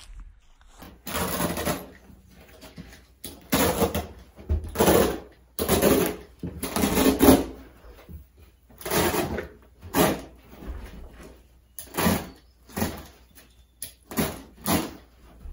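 Old wall-to-wall carpet being pulled up off the floor by hand, with a rough tearing rasp on each pull, repeated about once a second.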